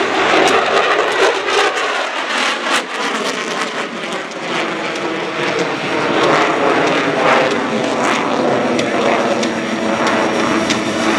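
USAF F-16 Fighting Falcon's F110-GE-129 afterburning turbofan, loud and steady as the jet flies its turning maneuvers, with many sharp crackles through the roar.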